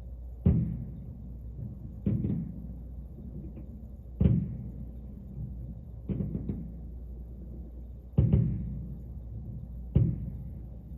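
Fireworks shells bursting: six deep booms about two seconds apart, each trailing off in a low rumble.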